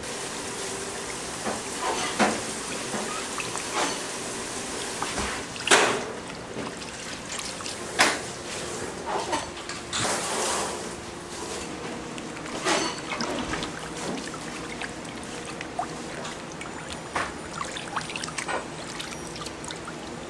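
Water running steadily from a tap, with scattered knocks and clatters; the loudest comes about six seconds in.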